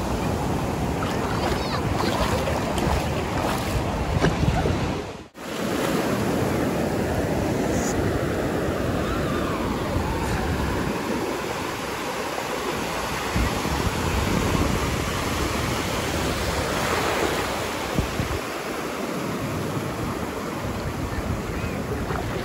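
Sea surf washing in over shallow sand in a steady, foaming wash, with a brief cut-out about five seconds in.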